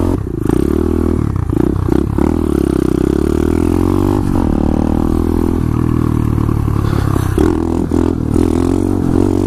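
A 2015 SSR 125cc pit bike's single-cylinder four-stroke engine revving hard under throttle, with several brief dips in the engine note. Near the end it is held on the throttle as the bike rides a wheelie.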